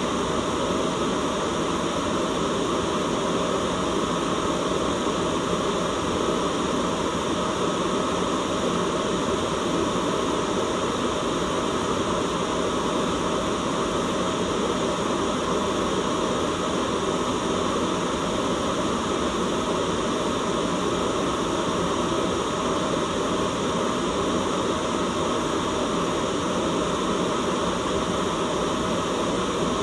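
Continuous, even hiss of a white noise track, steady in level with no changes or events.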